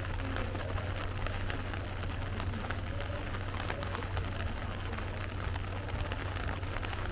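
Steady rain pattering, with many small drop ticks and a low steady hum underneath.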